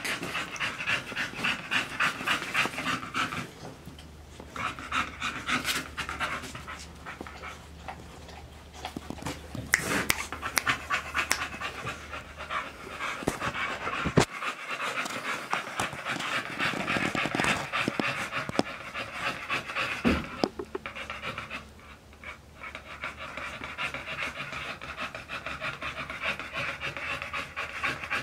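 American Bully dogs panting rapidly, in stretches with short pauses between them, with a few sharp clicks in between.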